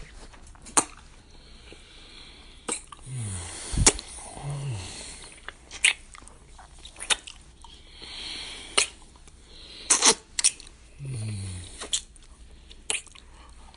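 Close-up wet kissing: about nine sharp lip smacks at uneven intervals, the loudest about four seconds in, with heavy breathing between them and a few short, low falling hums.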